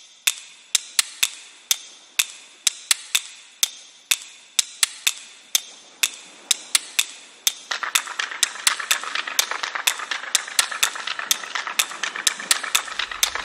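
Sharp taps with a short ring, about two a second and unevenly spaced, as small hard seeds and whole spices land in a stainless steel bowl. About eight seconds in, a steady hiss and quicker, denser crackling join them.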